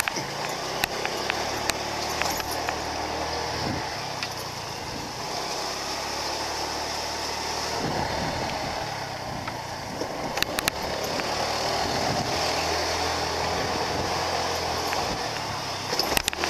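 Motorbike engine running as the bike rides along, with wind and road noise on the microphone. The engine note shifts with speed, and there are a few sharp knocks about ten seconds in and near the end.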